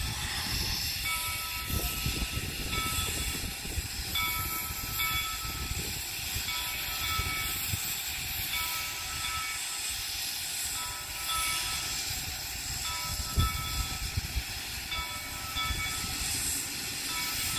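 Denver & Rio Grande Western No. 168, a 4-6-0 steam locomotive, hissing as steam vents from its cylinders, over a low rumble as it works slowly. A bell rings steadily about once a second, and there is a single low thump about 13 seconds in.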